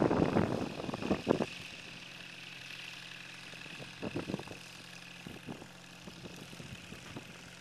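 Kitfox light aircraft's engine and propeller running steadily, heard from a distance as the plane waits on the runway. Wind buffets the microphone for the first second and a half.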